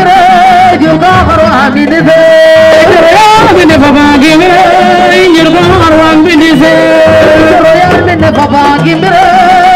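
A woman singing a cappella into a microphone, a griot's praise song with long held notes bent and ornamented up and down, loud and amplified.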